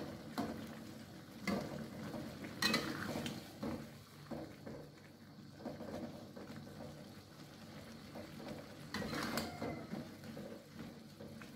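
Metal spatula scraping and knocking against a metal wok while stirring water spinach in broth, in scattered strokes with a busier spell about nine seconds in.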